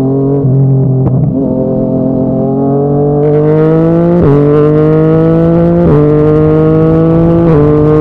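Yamaha MT-09's three-cylinder engine through a Yoshimura R55 slip-on exhaust, accelerating under load with its pitch climbing. It shifts up three times, about four, six and seven and a half seconds in, each shift dropping the pitch before it climbs again.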